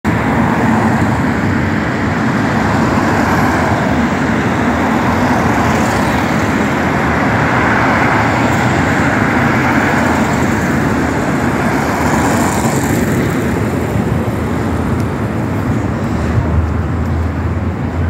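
Steady traffic noise of a city street: a continuous rush of passing cars, easing a little after about thirteen seconds.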